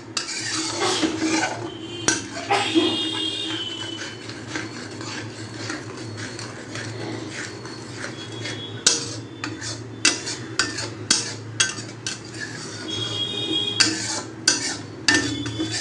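A metal spatula scraping and clinking against a metal kadai as a spice-paste gravy with water is stirred. There are short squeaks of metal on metal now and then, over a steady low hum.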